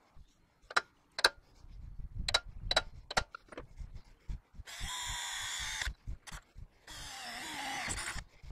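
Five sharp metallic taps in the first few seconds. Then a cordless drill runs twice, each time for about a second, boring holes in a round steel trailer rail.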